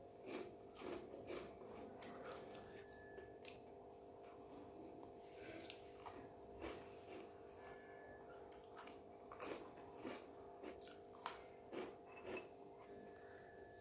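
A person chewing and eating close to the microphone: irregular soft mouth sounds with short crunches and clicks.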